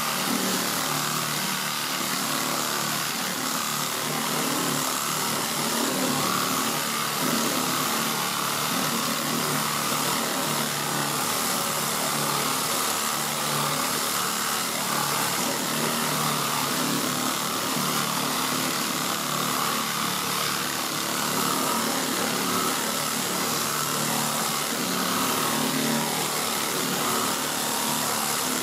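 Pneumatic air file fitted with 40-grit paper sanding down cured body filler on a door bottom, running steadily without a break.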